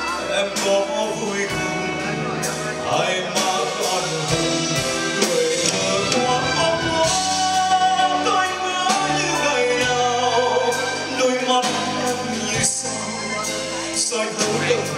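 Live band playing a slow Vietnamese ballad with a drum kit and cymbals, a male voice singing over the music.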